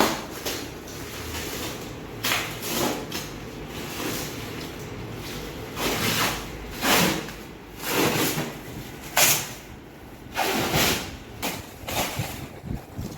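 Irregular rustling and scraping of packaging being handled, a dozen or so rough swishes and scrapes of uneven length.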